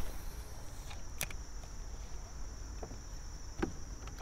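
Insects chirring steadily at one high pitch, with a few short, sharp clicks from the spinning rod and reel as the bait is cast and reeled in.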